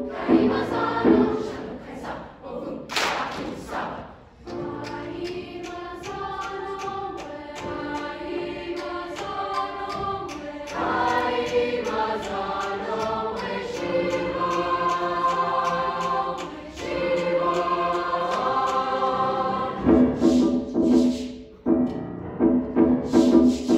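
Large youth choir singing: short rhythmic accented notes at the start and again near the end, with sustained chords in between and a brief hissing burst about three seconds in.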